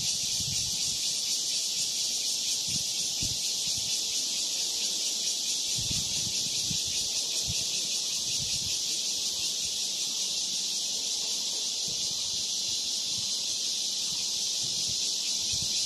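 Steady, unbroken chorus of insects, high-pitched and even throughout, with a few soft low bumps now and then.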